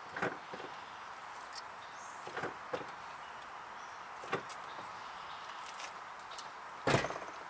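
A few light clicks and knocks over a faint steady background, then one louder knock near the end.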